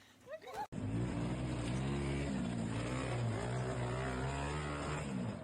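A motor vehicle's engine running loud, starting abruptly about a second in, its pitch rising and dipping slightly as it revs.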